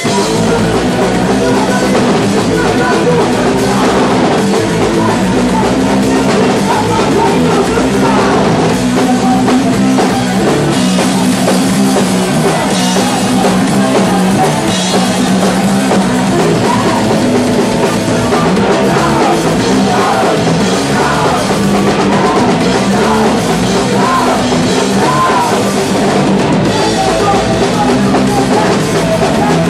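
A punk rock band playing loudly, with drum kit, electric guitar and vocals.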